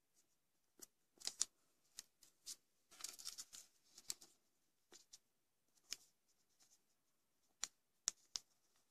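A sheet of origami paper crinkling in short, crisp, irregular snaps as fingers fold it and press down the creases, with a brief denser rustle about three seconds in.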